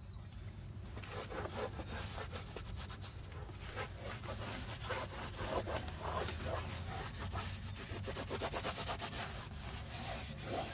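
Cloth rag rubbing and wiping over the textured black underbody coating inside a car's rear wheel arch, in quick, irregular scrubbing strokes that start about a second in.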